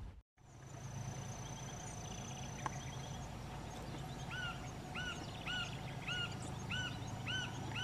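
A bird calling over and over, about two short rising-and-falling calls a second, starting about four seconds in, over a faint low steady hum.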